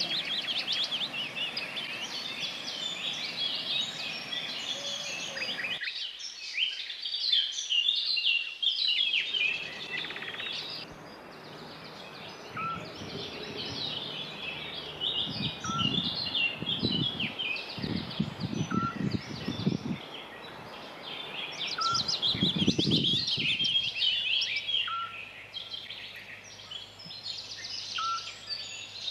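Garden birdsong, several songbirds singing and chirping together, with one short clear call repeated about every three seconds through the middle and latter part.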